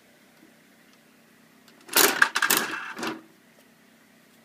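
1970s Superette coin-operated toy vending machine's handle being turned: a dense mechanical clatter of rapid ratcheting clicks lasting about a second, starting about two seconds in, as the machine vends a toy.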